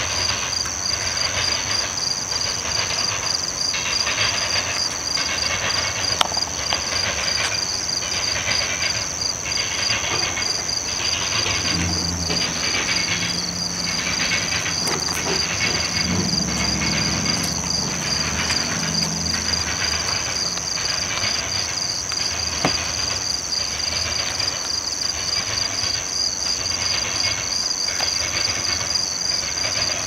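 Freight hopper cars' wheels hammering over railroad crossing diamonds, a clatter that comes back about once a second as each truck crosses the gaps. Crickets chirp steadily behind it.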